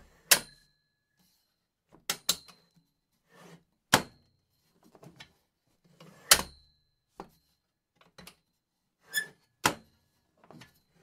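Folding card table being set up: a series of sharp knocks and clatters as its legs and frame are unfolded and locked, some with a short metallic ring, spaced a second or so apart with quieter rattles and scrapes between.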